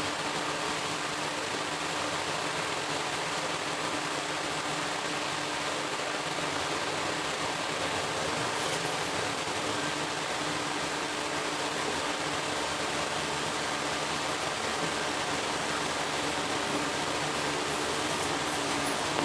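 Steady background hiss with a low, even hum that does not change.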